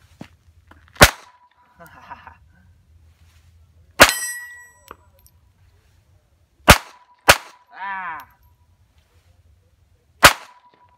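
Five pistol shots, spaced a few seconds apart, with two of them close together about two-thirds of the way in. Most are answered by the ringing clang of an AR500 steel target being hit. A short falling whine comes just after the fourth shot.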